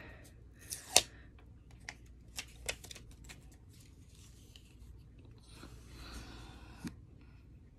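Quiet handling of a plastic blush palette as it is opened: a sharp click about a second in, a few lighter clicks, and soft rustling.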